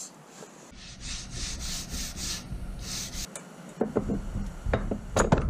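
A hand file rasping wood in a run of uneven scraping strokes, about three a second, then a few sharp knocks near the end.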